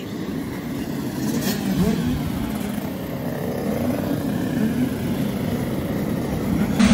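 A pack of 85cc two-stroke motocross bikes running together, a dense mix of many engines with revs rising and falling. The sound turns suddenly louder right at the end.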